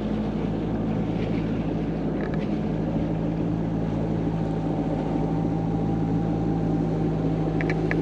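Gulfstar 40 sailboat's inboard diesel engine running steadily at an even pitch, pushing the boat upriver against the current, with a hiss of water and wind over it.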